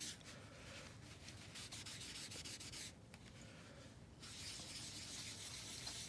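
Facial tissue rubbed back and forth over heat-embossed cardstock, a faint papery scratching that wipes loose Brusho powder off the embossed areas. It stops briefly about three seconds in, then starts again.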